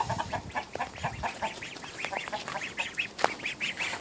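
Young ducks peeping continuously: short high calls, about four a second. One brief knock comes about three seconds in.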